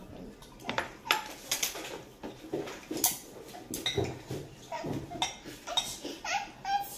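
Bowls, plates and eating utensils clinking and knocking at a dinner table: many separate short knocks at an uneven pace.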